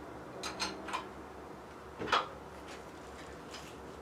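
Light metallic taps and clicks of hand tools working the bolts of a lathe's motor mount: three or four in the first second, another about two seconds in.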